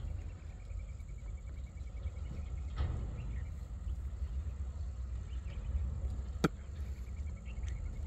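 Insect chirping in a fast, even pulse, in two runs: over the first couple of seconds and again near the end, over a steady low rumble. A single sharp click about six and a half seconds in.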